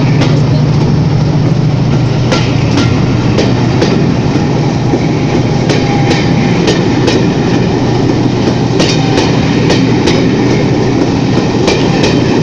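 Passenger coaches of a departing train rolling past, a steady rumble with the wheels clicking over rail joints in small groups every second or two.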